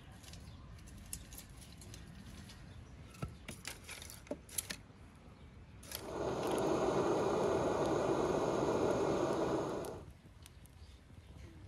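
Sticks and split logs knocking and clicking as a fire is laid in an iron stand. About six seconds in, a steady rushing hiss from a spray can held to the kindling to light it runs for about four seconds and then cuts off.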